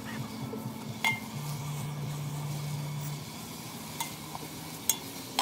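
A spoon stirring onion and tomato frying in a pot over a wood fire, with a steady low sizzle and a few sharp clinks of the spoon against the pot, about a second in and near the end.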